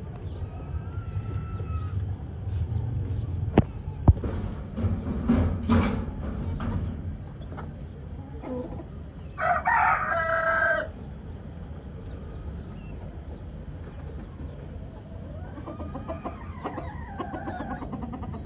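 Chickens clucking, with a rooster crowing once loudly about halfway through and a fainter call near the end. Two sharp knocks come about four seconds in.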